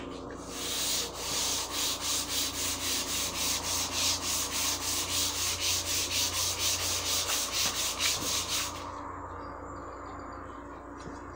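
Hand sanding with sandpaper on a sanding block, rapid back-and-forth strokes at about three to four a second, stopping about nine seconds in.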